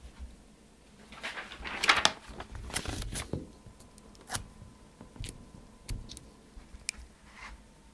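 Handling noise close to the microphone: a scuffling rustle for about two seconds, then a few separate clicks and knocks, as a paper sign is moved about in front of the webcam.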